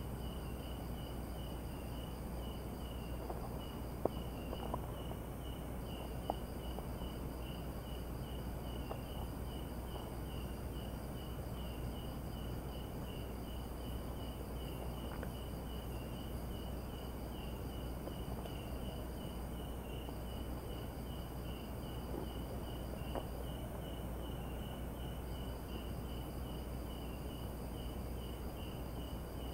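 Night insects calling: crickets keep up a pulsed chirp about two to three times a second, with a steady higher trill above that breaks off and resumes a few times. Under them runs a low steady rumble, and a few faint clicks come about four to six seconds in.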